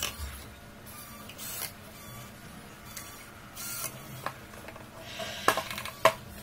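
A cordless drill briefly drives a screw into the plastic housing of a battery strapping tool. This is followed by handling noises and two sharp knocks near the end as tools are set down and lifted on the workbench.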